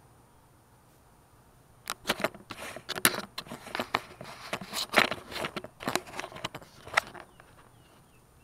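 Handling noise from the camera being picked up and turned around: a run of uneven clicks, knocks and rustles that starts about two seconds in and stops about a second before the end.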